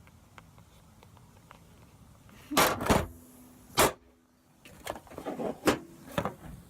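Pliers squeezing an iPhone 6s Plus battery: two loud crunching clacks a few seconds in, then a run of smaller clicks and knocks.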